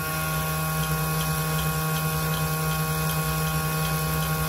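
Banglemaster B12 CNC jewellery machine running its diamond-tool cutting cycle on a gold ring: a steady electric hum and high spindle whine, with faint regular ticking a few times a second.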